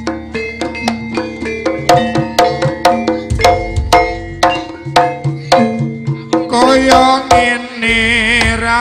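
Live Javanese gamelan-style music: hand drums and struck pitched metal keys playing a quick, even beat. About three-quarters of the way in, a high wavering melodic line joins over the percussion.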